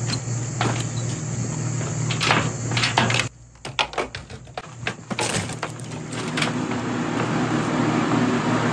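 Metal door latches on a steel-sided wood-drying kiln clicking and clanking as they are worked open, then the door swings open and the steady whir of the kiln's circulation fans comes up from about six seconds in.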